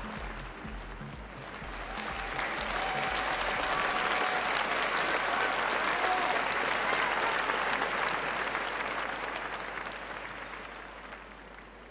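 Audience applauding, swelling over the first few seconds and dying away near the end. Faint background music underneath stops about four seconds in.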